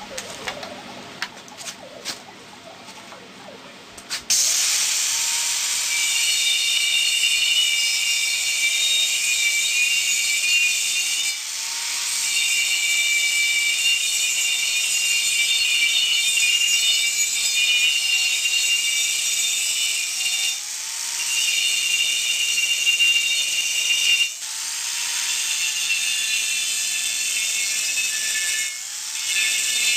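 Angle grinder with a cut-off disc slicing through the steel shell of an empty propane tank: a steady, loud, high grinding whine. It starts about four seconds in after a few handling clicks and eases off briefly a few times as the cut goes on.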